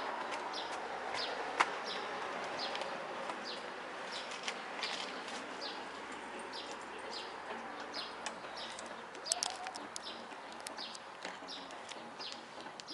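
Small birds chirping repeatedly, short high calls about twice a second, over a steady rushing noise.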